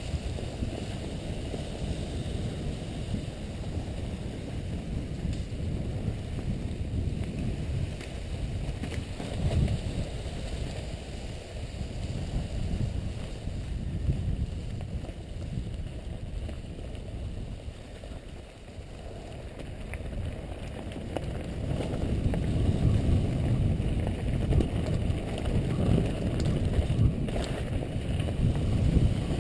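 Wind buffeting a helmet-mounted camera's microphone and a mountain bike's tyres rolling over a leaf-covered trail during a downhill run: a low, steady rush that grows louder about two-thirds of the way through.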